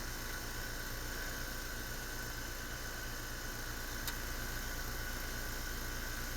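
Heat pump outdoor unit running: steady fan and compressor noise with a thin, steady high whine over it, and one small click about four seconds in.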